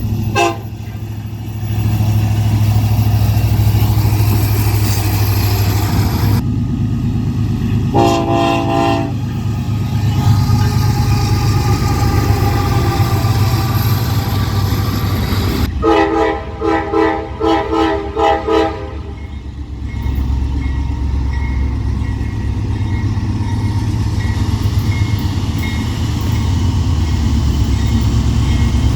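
Train air horn sounding a chord of several tones: one short blast about eight seconds in, then a quick series of short blasts about sixteen seconds in. Underneath is the steady low rumble of the train running.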